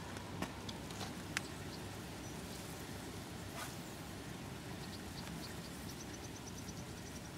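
Riverbank background noise, a steady hiss, with a few sharp clicks in the first two seconds and, from about five seconds in, a short run of quick, faint, high ticks.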